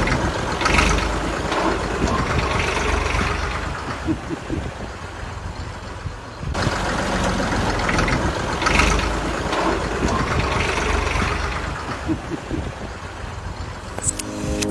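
Restored diesel tractor engine running steadily. Music starts right at the end.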